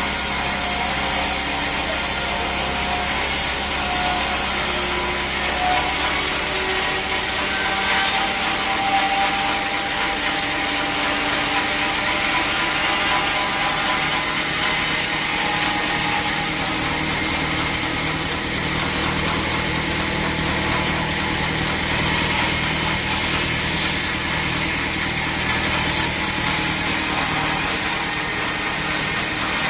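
Sawmill saw cutting through teak wood: a steady, loud rasping hiss of the blade in the timber, running without a break.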